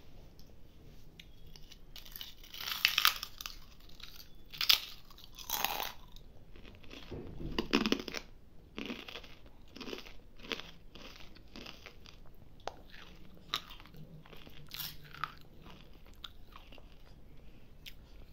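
A crisp, waffle-shaped snack being bitten and chewed: a string of irregular crunches, a few sharper ones loudest, spaced a second or so apart.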